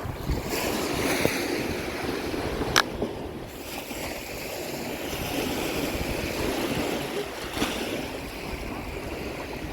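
Lake waves washing against the shore, with wind buffeting the microphone. Two sharp clicks, about three seconds in and again about eight seconds in.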